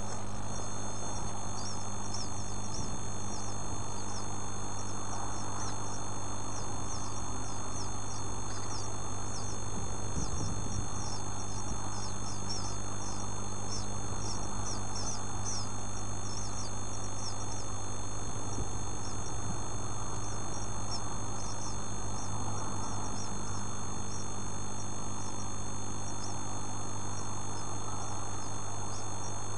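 Two-day-old bird chicks peeping: many rapid, thin, high chirps, each falling in pitch, thinning out in the last several seconds, over a steady low electrical hum.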